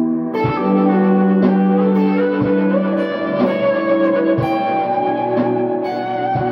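Clean electric guitar on a Squier Telecaster, played through Old Blood Noise Endeavors Dark Star and Procession reverb pedals into a Boss Katana amp. Sustained notes ring over one another into an ambient wash, shifting pitch a few times, with a soft pulse about once a second.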